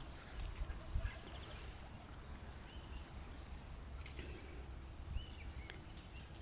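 Outdoor background noise with a low rumble, a few soft knocks about a second in, and a couple of short, faint chirps a little past the middle.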